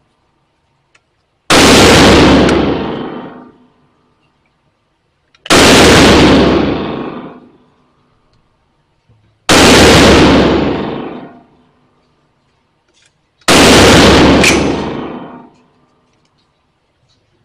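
Single firearm shots fired at a slow, even pace, one about every four seconds, each loud crack followed by a long echoing tail.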